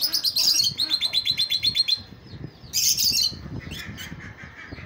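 A lutino cockatiel held in the hand, calling: a fast run of sharp chirps, about ten a second, for the first two seconds, then one louder harsh squawk, then softer chirping.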